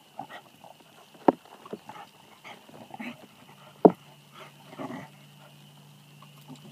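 Two dogs, a beagle and a black lab–bluetick hound mix, play-fighting, with a scatter of short, sudden dog noises; the loudest come about a second in and about four seconds in. A low steady hum comes in about four seconds in.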